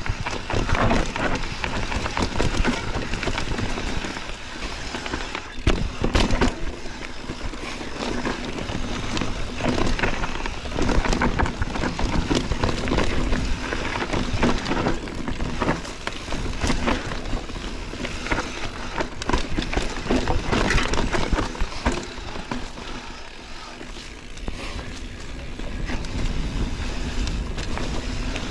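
Mountain bike being ridden hard over a rough dirt trail: continuous tyre rumble with frequent sharp knocks and rattles from the bike over roots and bumps.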